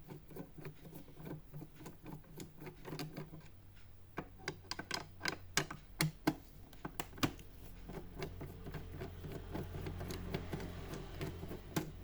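Irregular clicks and taps of a screwdriver and hands on the plastic casing and stand of an all-in-one PC, undoing the stand's screws.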